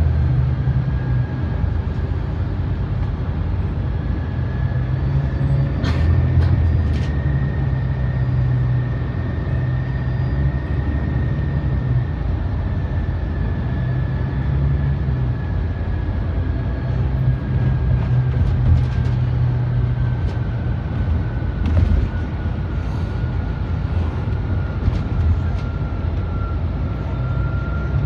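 City bus #184 of Honolulu's The Bus under way, heard from inside: a steady low engine drone with a thin high whine that climbs slowly over the first ten seconds or so and then sinks back. A few sharp rattles come about six seconds in and again a little past twenty seconds.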